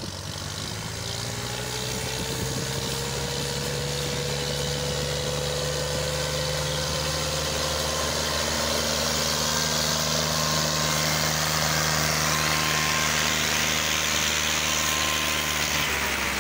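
Massey Ferguson tractor diesel engine working hard under heavy load, pulling a loaded trolley and a chained tractor. A whine rises in pitch over the first few seconds while the engine grows louder, then holds steady.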